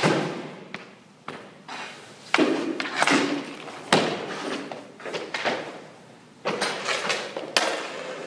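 A series of sharp knocks and thuds at irregular intervals from a hockey goalie drill: pucks being shot and striking the goalie's pads, stick and the boards, and leg pads dropping onto the rink surface.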